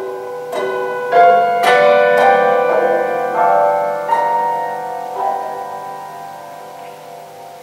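Grand piano prepared with screws, bolts and rubber between its strings, played slowly. A quick run of struck notes in the first two seconds is followed by a few more, and all are left to ring and fade away toward the end.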